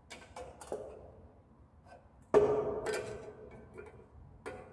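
Screwdriver and metal parts clicking and knocking while a circlip is prised off a scooter's kickstarter mechanism, with one loud ringing metal clank about two and a half seconds in and a last sharp click near the end.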